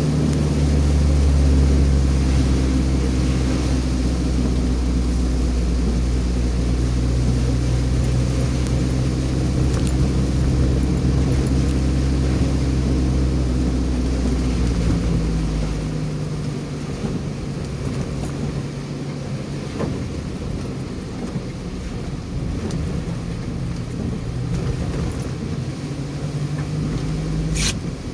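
Car driving along: a steady low engine hum with road noise. The lowest part of the hum drops away a little past halfway, and there is a single sharp click near the end.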